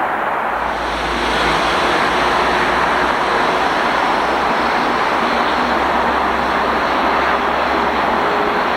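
Train passing close by: a steady rushing noise with a low rumble that comes in about half a second in and holds.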